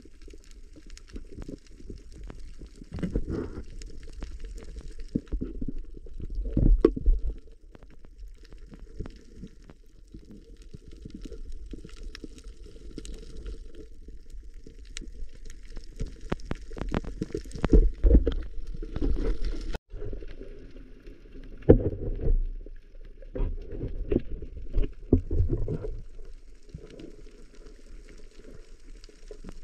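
Underwater sound picked up by a camera in its housing: a muffled low rumble and gurgling of moving water, swelling louder several times, with scattered sharp clicks and crackles.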